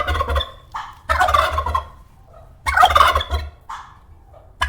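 Male turkey gobbling: loud, rapid rattling gobbles repeated with short pauses, a new one about every one and a half to two seconds.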